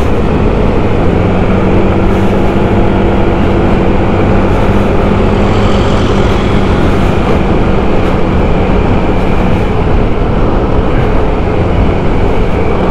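Light white-plate motorcycle riding at steady speed: the engine's steady drone under heavy wind and road noise, with the pitch shifting slightly as the throttle changes.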